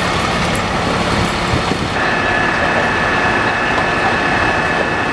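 Diesel engines of FDNY fire trucks running steadily, a loud even rumble, with a steady high-pitched tone coming in about two seconds in.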